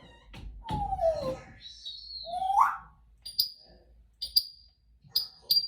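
African grey parrot whistling: a falling whistle, a high whistle and a quick rising glide. Then a run of short, sharp, high beeps that come mostly in pairs about once a second.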